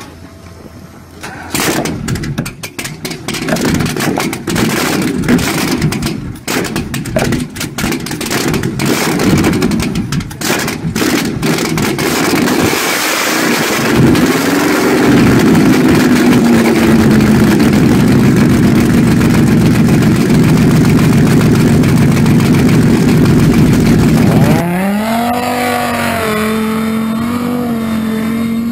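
Powerboat inboard engine with velocity-stack fuel injection and through-transom exhaust being started: about ten seconds of uneven sputtering and firing as it catches, a blip of revs, then a loud, steady idle. Near the end it cuts to a speedboat running on open water, its engine pitch rising and falling as it turns.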